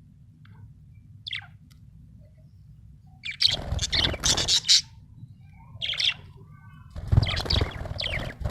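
Budgerigar chirping in short bursts: a single chirp about a second in, a busy run of chirps around four seconds, another chirp near six seconds and a second busy run near the end. A steady low hum lies underneath.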